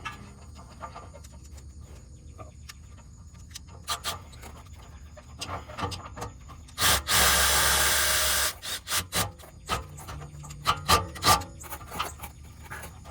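Scraping, rubbing and clicking of hands and tools against metal parts while a part is worked back into place on the engine. There is a loud rushing hiss for about a second and a half in the middle, and a few sharp clicks near the end.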